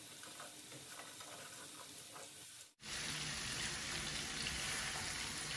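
Curry with lentil fritters sizzling in a stainless steel frying pan as a wooden spatula turns them. The low, even sizzle breaks off for an instant nearly three seconds in and comes back louder.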